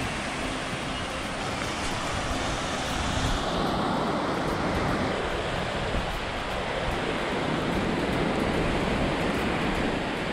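Sea surf breaking and washing up on a sandy beach, a steady rushing wash, with wind buffeting the microphone.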